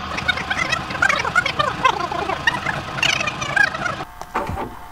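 Speech played fast-forward: a high-pitched, chattering babble of sped-up voice over a hiss of static. It cuts out about four seconds in.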